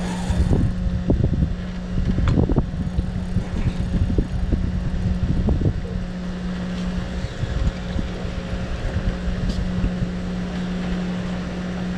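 Wind gusting against the microphone in low rumbling buffets, heaviest in the first half, over the steady low hum of the boat's outboard motor running.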